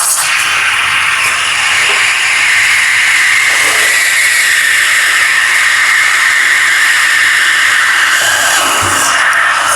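Elektra espresso machine's steam wand hissing steadily as it steams milk, the hiss slowly dropping in pitch before it cuts off at the end.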